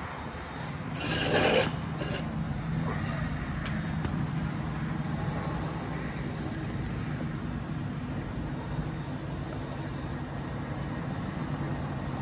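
Rubbing and scraping handling noises from hands working around a dirt bike's carburetor: a short loud rasp about a second in, a smaller one just after, then faint fiddling over a steady low hum.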